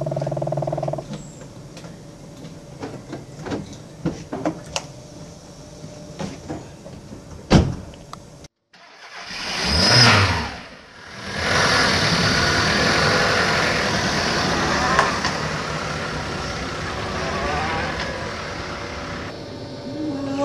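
A car: a few knocks and a sharp click, then a car swelling up and fading as it passes, followed by the steady noise of a car running.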